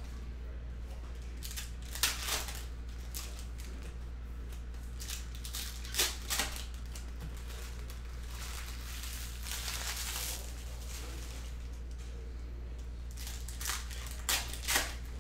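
Trading-card pack wrappers being torn open and crinkled while cards are handled: short crackly tearing sounds in pairs about 2, 6 and 14 seconds in, and a longer rustle near the middle. A steady low hum runs under it all.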